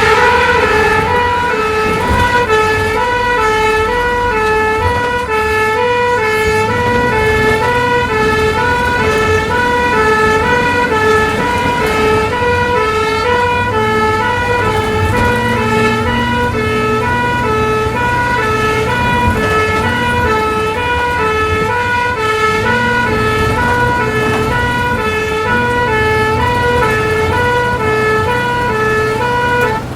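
Ambulance two-tone siren heard from inside the vehicle, alternating steadily between a high and a low note, over the low rumble of the engine and road.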